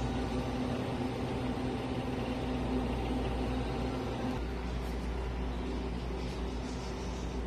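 Steady low mechanical hum of store equipment, with a few steady tones in it; the hum shifts slightly about four seconds in.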